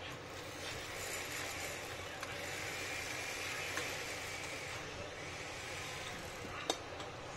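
Faint clicks and taps of a small screwdriver and plastic speaker casing being handled as its screws are backed out, over a steady hiss. One sharper click comes near the end.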